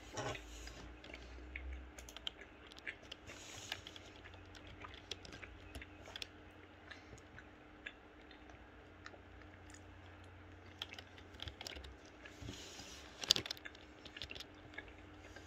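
Close-up chewing and wet mouth sounds of someone eating Greek yoghurt and pasta, with scattered small clicks. A short, louder noise comes near the end.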